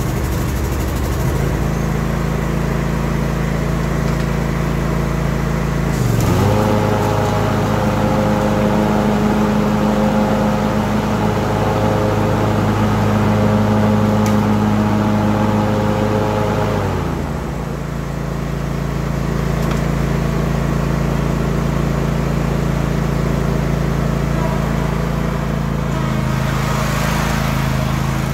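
Cub Cadet Ultima ZT1 zero-turn mower's engine running just after starting: it idles steadily, is throttled up to a higher steady speed about six seconds in, and drops back to idle about eleven seconds later. Near the end the sound turns rougher as the mower moves off.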